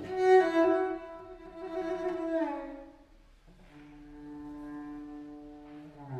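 Solo cello played with the bow: a loud accented note held for about two and a half seconds and dying away, then after a short gap a softer, lower sustained note.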